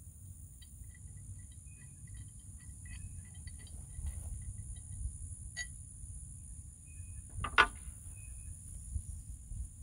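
Steady high drone of insects over a low outdoor rumble, with faint scattered chirps. Near the end comes a single sharp clank as a tow strap is hooked onto the front of a zero-turn mower.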